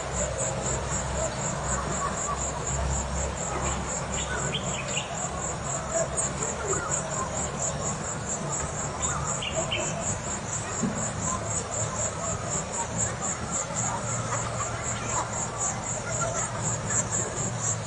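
Insects trilling in a steady, fast, even pulse, high-pitched and unbroken, over the ambience of a small African river. A few short bird chirps come about a quarter and half of the way through, and a low steady hum runs underneath.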